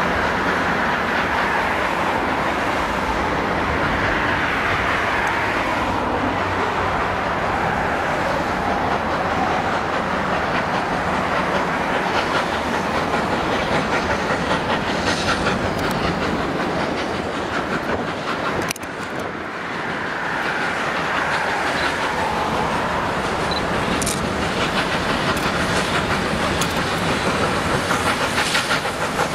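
Victorian Railways K class 2-8-0 steam locomotive K153 and its train of carriages rolling slowly through the yard's pointwork, with wheels clattering over the rail joints and a steady noise of the train running throughout. The sound dips briefly about two-thirds of the way through.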